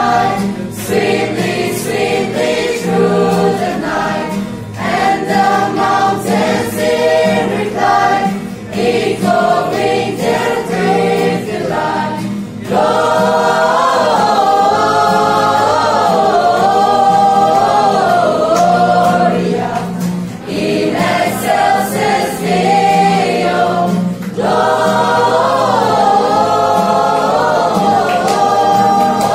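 A small group of young voices singing a Christmas carol together, accompanied by acoustic guitar. The singing turns fuller and more sustained about halfway through.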